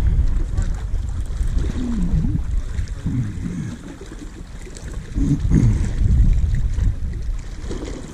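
Wind rumbling on the microphone, swelling and easing, with a few short low wavering sounds about two, three and five seconds in.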